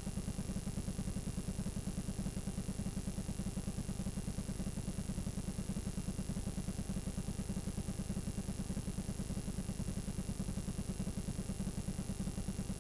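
Blank VHS tape playing back with no recorded signal: a steady low buzz that pulses rapidly and evenly, with light hiss and a faint high whine.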